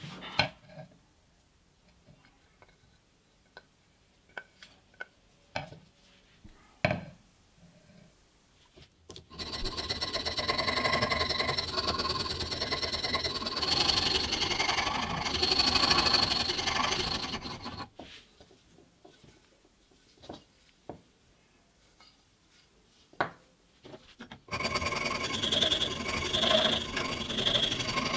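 A rasp or file worked along a round wooden knife handle clamped in a bench vise, shaping it. There are two long spells of rasping: one from about nine seconds in lasting some eight seconds, and another near the end with regular strokes under a second apart. Clicks and knocks of tools being handled come in between.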